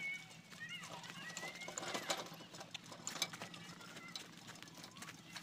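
Bicycle rattling and clicking irregularly as it is ridden over a rough dirt track, with a few faint high chirps.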